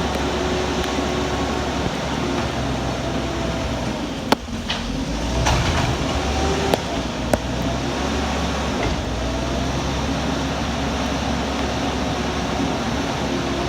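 Old Heil garbage truck's diesel engine running steadily, with a faint whine that rises and falls and a few sharp knocks around the middle. Heavy rain hisses throughout.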